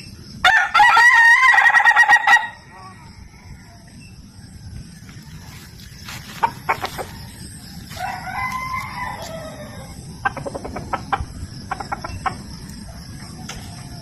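Ayam ketawa (laughing chicken) rooster crowing: one loud crow of rapid stuttering notes about half a second in, lasting about two seconds. Quieter calls and a run of short clucks follow later.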